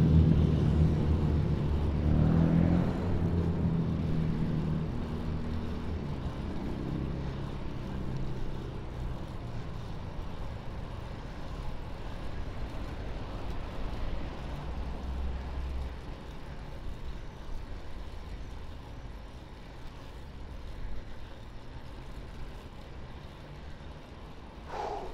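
Road traffic: a motor vehicle's engine hum, loud at first and fading away over the first several seconds, then a steady, quieter background of city traffic.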